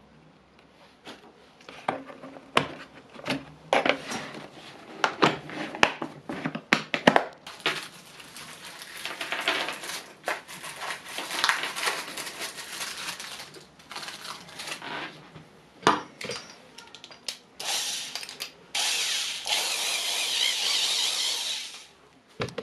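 Steel drill bits clicking and rattling as they are picked out of a plastic bit case and handled, with sharp knocks in quick succession. Near the end a cordless drill runs for about three seconds.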